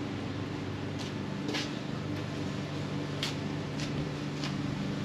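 Steady low mechanical hum, with a few faint short clicks scattered through it.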